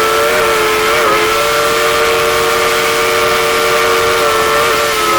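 Steam whistle of Dollywood Express locomotive No. 192 held in one long, loud blast, several notes sounding together as a chord. The pitch wavers slightly about a second in and again near the end.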